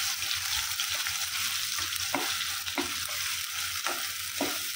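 Onion-tomato masala paste sizzling in hot oil in a kadhai as it is fried down, with a spatula stirring and scraping it against the pan in several short strokes.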